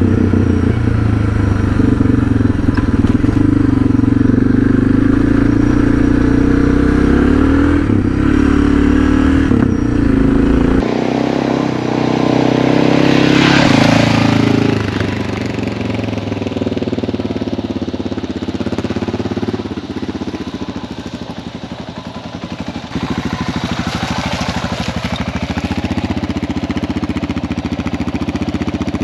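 Suzuki DR650 single-cylinder dual-sport motorcycle being ridden, its engine running with shifting pitch. The sound changes abruptly about eleven seconds in, then runs somewhat quieter through the later part.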